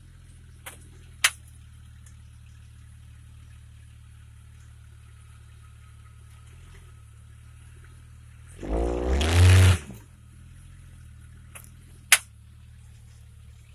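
Off-road SUV engine idling low while crawling up a rock ledge, then revving with a rising pitch for about a second, the loudest sound here, about two-thirds of the way through. Two sharp knocks, one about a second in and one near the end.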